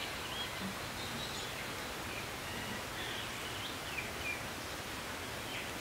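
Outdoor rural ambience: a steady background hiss with faint, scattered bird chirps.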